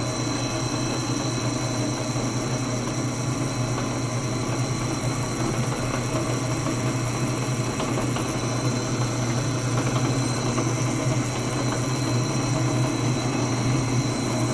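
Bauer 17-inch drill press running with no load, its motor and belt-driven spindle giving a steady hum.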